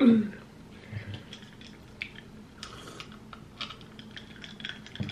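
A short vocal exclamation falling in pitch, then soft scattered clicks and sipping as root beer is drunk from a glass.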